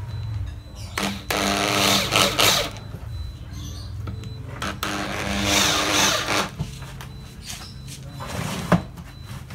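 Corded electric drill boring into a wooden board in two bursts of about a second and a half each, about a second in and about five seconds in, the motor spinning up and running steadily. A sharp knock near the end.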